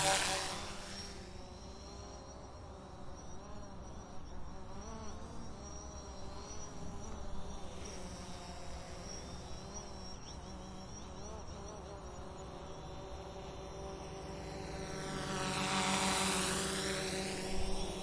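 A small drone's motors and propellers buzzing as it flies past. It passes close right at the start and its pitch drops as it moves off, then it hums farther away with a wavering pitch, and it swells into a second close pass about 16 seconds in.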